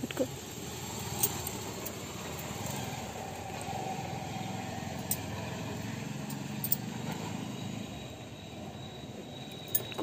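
Steady low background rumble with a faint hum that swells in the middle and fades, and a few scattered faint clicks.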